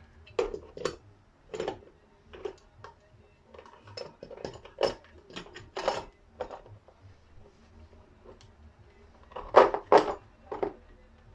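Metal parts and tools clinking and knocking as they are handled and fitted together on a workbench, in a series of separate sharp knocks with a louder cluster of several near the end.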